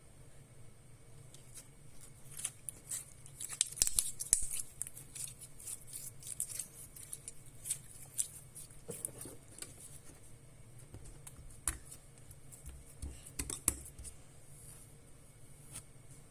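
Fingers squeezing and pulling a soft fruit gel slime, making scattered sticky clicks and crackles that come thickest about three to five seconds in and then thin out to a few separate pops.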